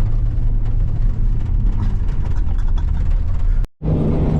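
Steady engine and road rumble heard from inside a moving vehicle, with a brief cut to silence near the end.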